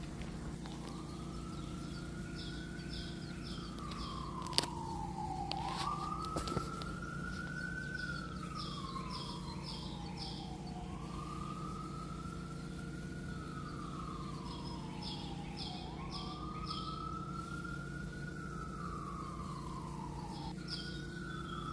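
Emergency-vehicle siren wailing, rising and falling slowly about every five seconds, over a steady low hum. Short high pips come in groups of four, and there is a sharp click about four and a half seconds in.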